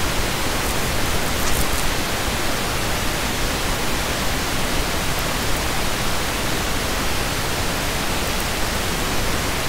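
Steady, even hiss of recording noise with no other clear sound.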